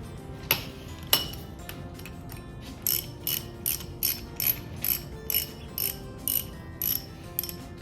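Hand socket ratchet clicking as it is worked back and forth, turning out a loosened cylinder head bolt: two sharp clicks about half a second and a second in, then an even run of strokes at about two to three a second.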